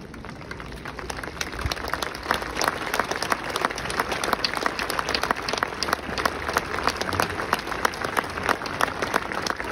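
Crowd applauding: many hands clapping, building over the first second or two and then going on steadily.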